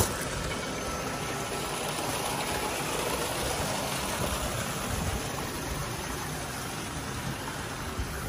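Steady rush of water pouring into and churning in fish-farm tanks, with a steady machine hum from the tanks' water system underneath.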